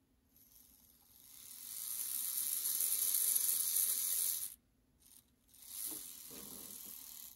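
Open-frame DC motor of an HO scale Bowser 2-8-0 steam locomotive chassis, run on test leads and whirring as it drives the worm gear and driving wheels. It speeds up over a second or so, runs steadily, and cuts off about four and a half seconds in. After a brief blip it runs again more quietly. This is the first test of the freshly installed motor and its worm-to-axle-gear mesh.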